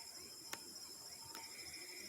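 Faint, steady high-pitched trilling of night insects such as crickets, with a weaker intermittent tone lower down near the end and two soft clicks, one about half a second in and one about a second and a half in.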